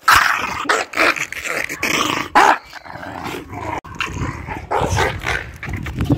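An agitated dog growling while biting at its leash, among irregular knocks and rustling as it is held back.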